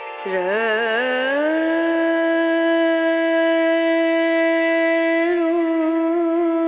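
Carnatic-style devotional music: one long note from a wind instrument or voice. It wavers through quick ornaments at first, then is held steady for about four seconds before it breaks off.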